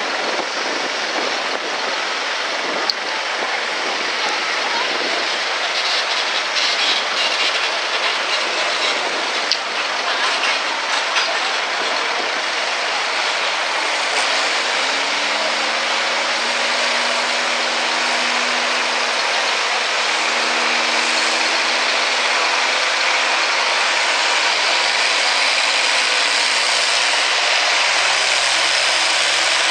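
International Harvester farm tractor's engine running while hooked to a pulling sled; about halfway through its pitch rises as the engine is revved up, then holds steady and loud.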